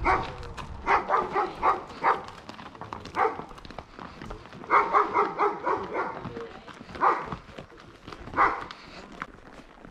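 A dog barking repeatedly, in quick runs of several short barks with single barks between.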